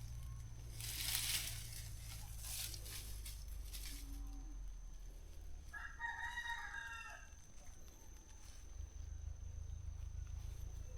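A rooster crows once, about six seconds in, a single call lasting a little over a second. A short burst of rustling noise about a second in is the loudest thing, over a steady low rumble and a faint steady high tone.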